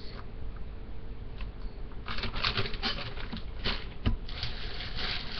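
Plastic packaging rustling and crinkling as items are handled, quiet at first and busier from about two seconds in, with scattered clicks and one sharp tap near the end.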